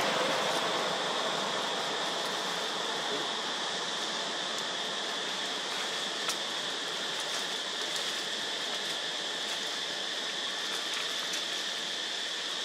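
Steady outdoor forest ambience: a constant, even high-pitched insect drone over a soft hiss, with a faint click about halfway.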